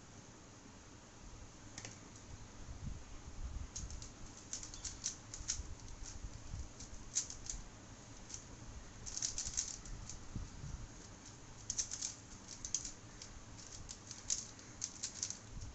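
Plastic 3x3 speed cube being turned fast during a timed solve: quick runs of light clicks and clacks as the layers turn, with short pauses between runs. The clicks are sparse at first and come thick and fast from about four seconds in.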